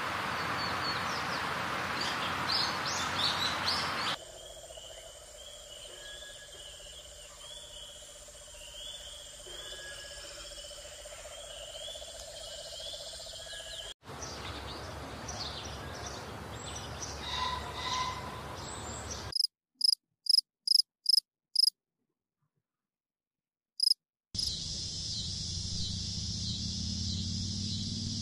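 A changing run of outdoor insect and bird sounds: a noisy stretch with scattered chirps, then a quieter repeating high trill, then six sharp insect chirps in about two seconds, a silent gap, one more chirp, and a steady high insect buzz near the end.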